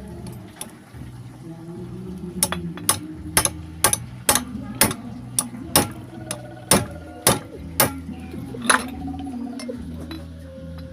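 Sharp metallic tapping: about fourteen strikes at roughly two a second, metal on metal, while a chainsaw's flywheel is being tightened onto the crankshaft.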